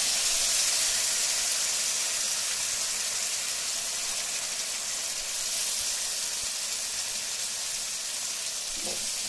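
Hot oil sizzling steadily in a frying pan around chopped garlic, oregano and a freshly added tomato-onion paste, easing off a little over the seconds.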